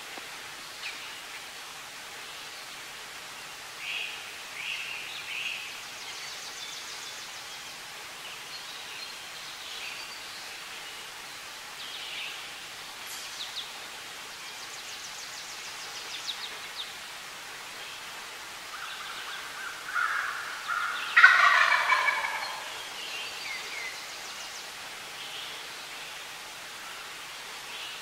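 A male wild turkey gobbles once, loudly, about three-quarters of the way in, with a shorter lower call just before it. Small songbirds chirp and trill faintly at times.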